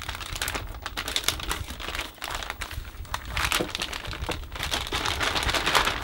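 Metallised anti-static bag being unfolded and opened by hand, a continuous irregular crinkling and crackling of the thin plastic film.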